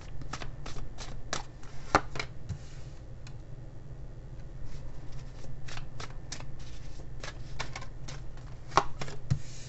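Tarot cards being shuffled and laid out on a tabletop: a series of crisp card snaps and slaps, one short run over the first two seconds or so and a longer run from about halfway in.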